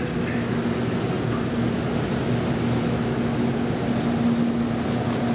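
JR Kyushu 787-series electric train standing at the platform, its onboard equipment giving a steady hum with a constant low tone.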